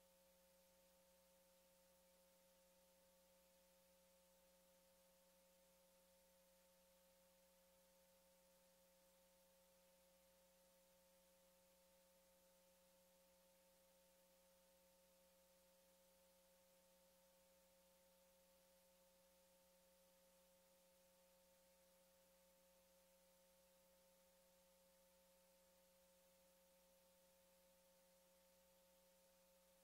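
Near silence: a faint, steady electronic tone of a few pitches over low hiss, unchanging throughout.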